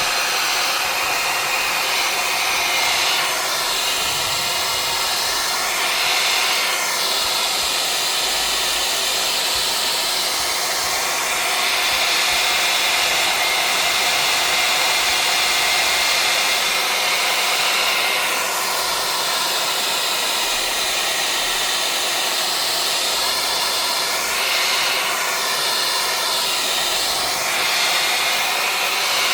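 Hair dryer blowing steadily, heating the tablet's front glass to soften the adhesive beneath it. Its rush shifts in tone in slow sweeps every few seconds.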